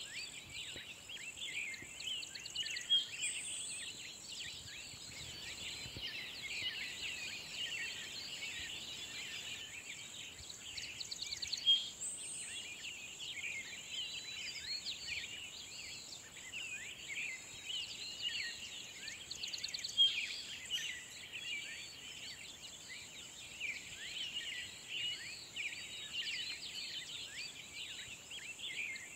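Countryside birdsong: many small birds chirping and trilling at once over a steady, high-pitched insect hum, with a few quick rattling trills.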